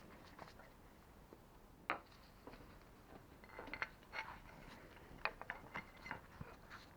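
Faint, scattered clicks and light metallic clinks of small metal parts and hand tools being handled on a workbench, with one sharper tap about two seconds in and a quick run of clinks in the second half.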